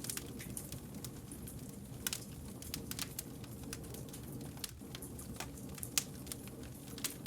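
Wood fire crackling, with irregular snaps and pops from the burning logs, a couple louder than the rest, over a steady low rumble of the flames.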